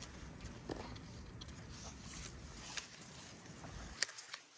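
Faint rustle of wet citrus leaves being handled close to the microphone, with a few light clicks, over a low background hum.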